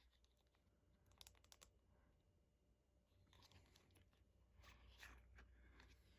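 Faint clicks and short rustles of a CD album's packaging being handled and opened, in a few small clusters.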